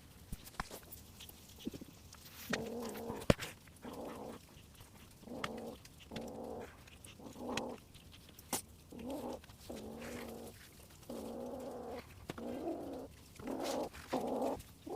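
A cat meowing over and over, a run of short, steady-pitched calls with brief gaps, along with a few light clicks.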